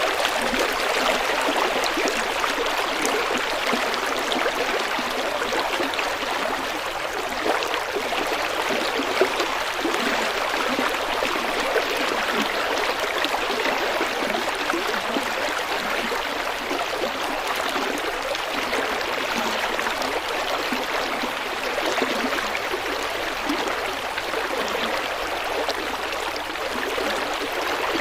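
River water flowing and babbling over stones, a steady rushing with small splashes and gurgles.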